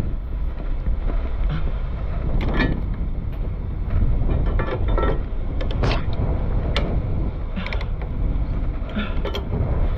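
Irregular metallic clicks and clanks as a steel cheater pipe and chain load binders on a flatbed trailer are handled, over a steady low rumble.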